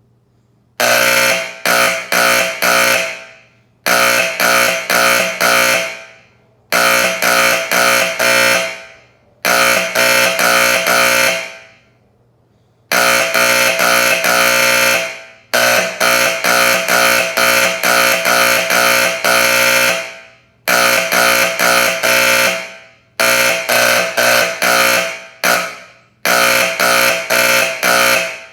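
Federal Signal Vibratone 120-volt fire alarm horn sounding, a loud buzzing horn tone. It starts about a second in and comes in groups of about four quick pulses, each group fading out before the next begins roughly every three seconds.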